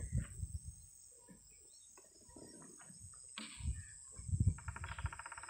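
Scattered low bumps and rumbles, with a rapid, evenly pulsed rattling call from a wild animal starting near the end and lasting about a second.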